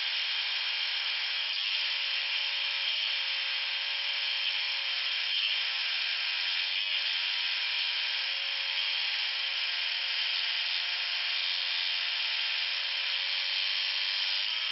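Electric scroll saw running steadily as its blade cuts a curve through a piece of wood. The hum dips briefly a few times during the cut.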